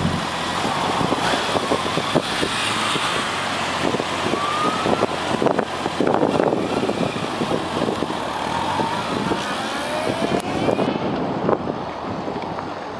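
Honda CB1100's air-cooled inline-four pulling away and accelerating into the distance, its pitch rising several times as it goes up through the gears, over steady street traffic noise.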